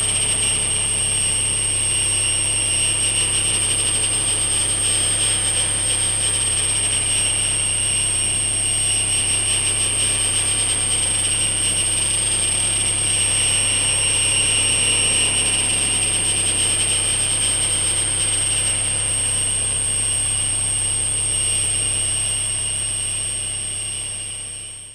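Patched semi-modular synthesizers sounding a sustained electronic drone of high, whistling, alarm-like tones over a low hum, played by hand on touch plates. It fades out over the last few seconds and stops.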